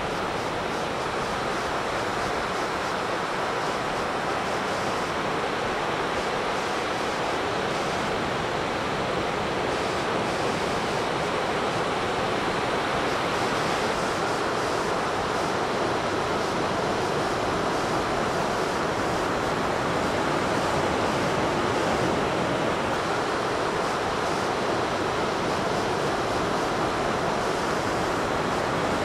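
Ocean surf: waves breaking in a steady, even wash of noise.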